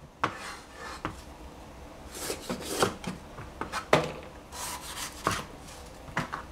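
A cleaver knocks a few times, widely spaced, on a plastic cutting board. Between the knocks are rubbing and rustling sounds as bell peppers are handled and moved on the board.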